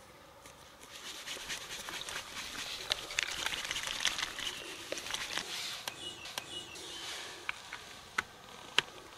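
A plastic bottle of tyre puncture sealant shaken hard for several seconds, the liquid sloshing and rattling inside: the sealant being mixed before it is injected into the flat tyre. Near the end, a few sharp clicks as the bottle's cap and hose fitting are handled.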